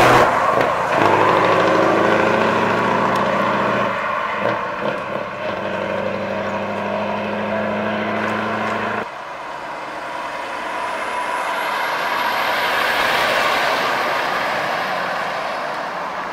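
Heavy diesel trucks driving past close by. For the first nine seconds there is a steady low engine drone, with a few clicks in the middle. After a sudden cut, another truck's tyre and engine rush swells and fades as it passes, with a faint high whine above it.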